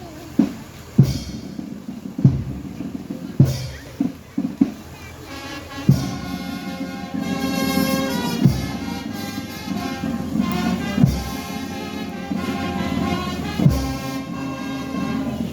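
Music: slow, heavy drum beats, joined about five seconds in by sustained brass instruments.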